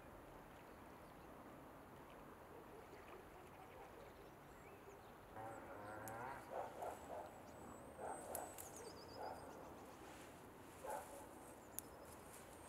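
Faint outdoor ambience with a run of distant animal calls starting about five seconds in, several short calls in quick succession and a few more spaced out later, along with thin, high bird chirps.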